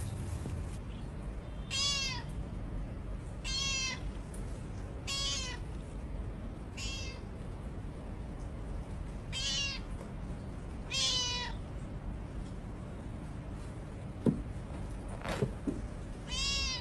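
A cat meowing repeatedly: seven separate meows, each rising and then falling in pitch, with a pause before the last. A sharp click comes shortly before the final meow.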